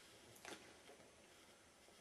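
Near silence: faint room tone with a couple of soft clicks about half a second in.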